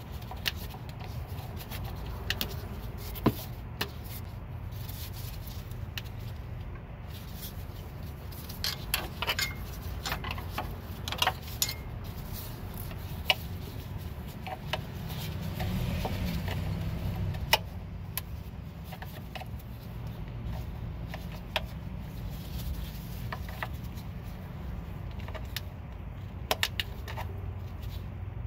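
Scattered light clicks, knocks and rattles of gloved hands working a car's ABS sensor wire and its plastic clips loose, over a steady low hum.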